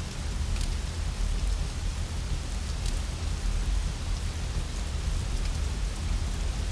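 Steady rain with a deep low rumble underneath and a few faint, sharp crackles, as from a fireplace fire mixed with the rain.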